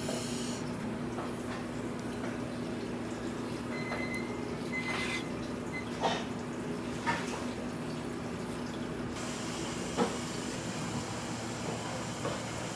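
A long slicing knife cutting tuna on a cutting board: a few light knocks as the blade meets the board, over a steady low hum.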